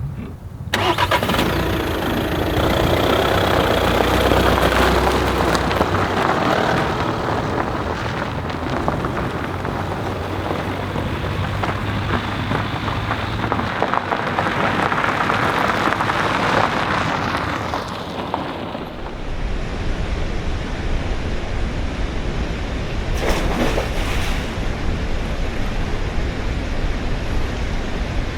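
A car engine starting and running, with a heavy low rumble setting in about two-thirds of the way through.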